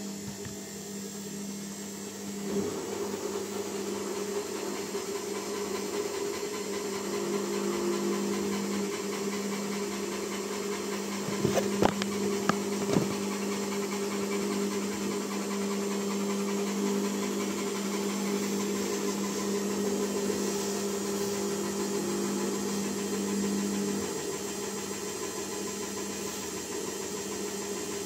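Samsung front-loading washing machine on its spin cycle: a steady hum with a held tone that drops out about four seconds before the end, and a few short knocks around the middle. The noise is taken for rubber squeaking because the load is spread a little unevenly, nothing serious.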